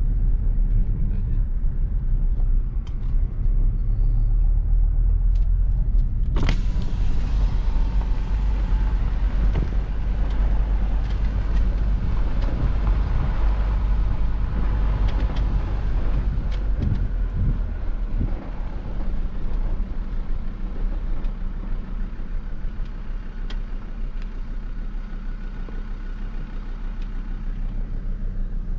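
Vehicle driving on a dirt track, heard from inside the cab: a steady low engine and tyre rumble. About six and a half seconds in there is a sharp knock, and the road noise grows louder for a while before easing off.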